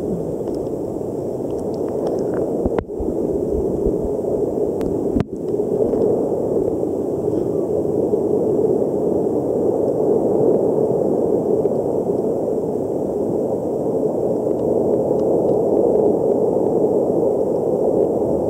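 Steady, muffled rushing hiss of water picked up by a camera held underwater, with two brief dropouts about three and five seconds in.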